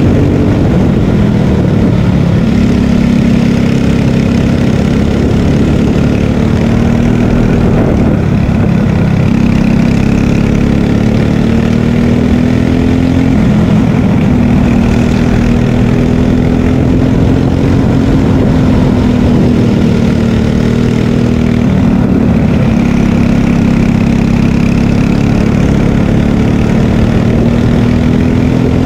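Kart engine running hard under the onboard camera of a Margay Ignite K3 racing kart. Its pitch drops several times as the kart slows for corners and climbs again on the straights.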